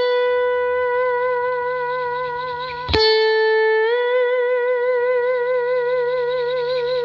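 Electric slide guitar played through an Origin Effects SlideRIG compressor pedal: a single note held with long, even sustain and a slide vibrato. About three seconds in a new note is plucked a little lower, slides up to the same pitch a second later and rings on with vibrato.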